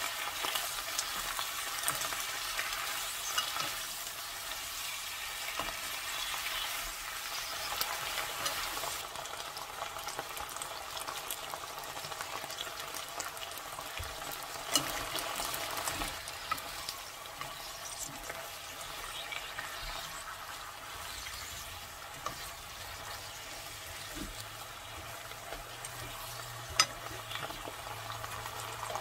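Fish cakes, onion, bell pepper and carrot sizzling in a nonstick wok, with a wooden spatula stirring and scraping them and small ticks and taps throughout. A single sharp knock sounds near the end.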